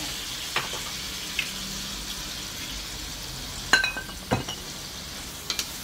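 Stir-fry of tofu, minced pork and black beans sizzling steadily in a wok, with a few sharp clicks and knocks, the loudest a little under four seconds in.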